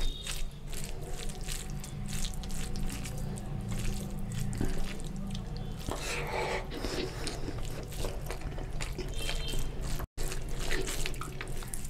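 Wet squelching and smacking of a bare hand mixing rice into chicken curry on a steel plate, many small wet clicks in a row. About six seconds in, a fuller burst of wet mouth sounds as a handful is eaten and chewed, then the hand mixing again.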